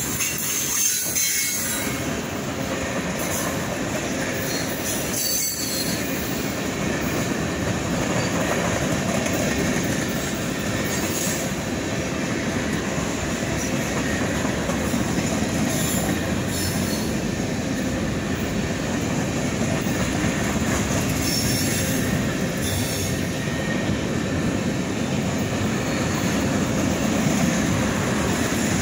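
A freight train's cars (boxcars, covered hoppers and tank cars) rolling past close by: a steady, continuous noise of steel wheels on rail that never lets up.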